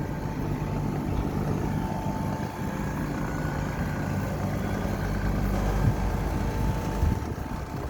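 Steady low mechanical hum with a faint higher whine and some background rush.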